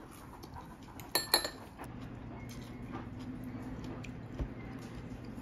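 Two sharp clinks of eating utensils against a ceramic dish, a moment apart, about a second in. Then a low steady hum sets in.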